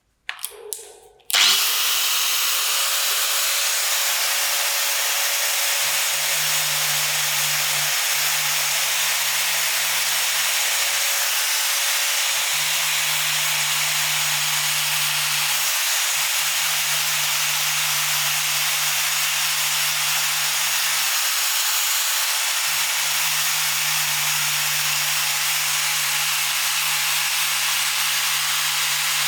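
Steady loud hiss of a compressed-air tool such as a blast or spray gun, starting sharply about a second in and running without a break, with a low hum coming and going four times underneath.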